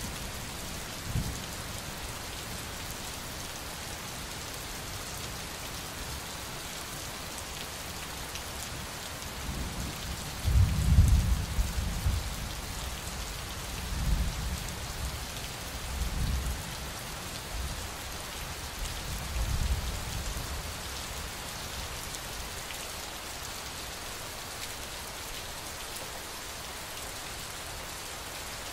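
Steady rain falling, an even hiss throughout, with low rolls of thunder: the loudest about ten to twelve seconds in, followed by several fainter rumbles over the next eight seconds.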